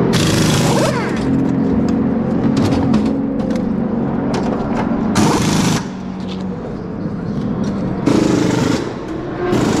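Race car pit stop: pneumatic wheel guns rattling in four short bursts over the sound of running race car engines.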